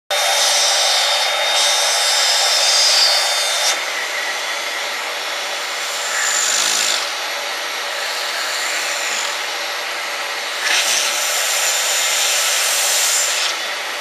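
Vacuum cleaner running steadily, drawing air through the open end of its hose wand; the rush of air shifts in level and pitch several times as the opening is covered and uncovered by a mouth and hand.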